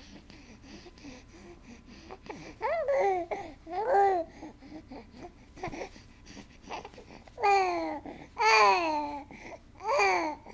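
Young baby cooing and babbling: about five high-pitched drawn-out coos that rise and fall in pitch. They start a couple of seconds in and grow longer and louder near the end.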